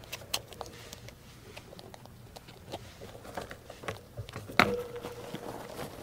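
A group of rats feeding in a cage: busy, irregular crunching and scratchy clicks. The loudest click comes about four and a half seconds in.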